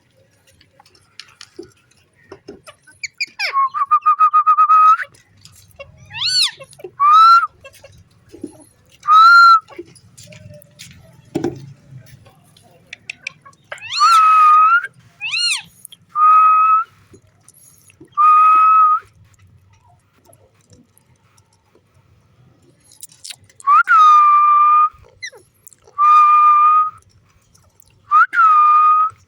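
Pet green parrot whistling: about a dozen clear whistles, some held steady for about a second, others short rising-and-falling notes, coming in spurts with pauses between.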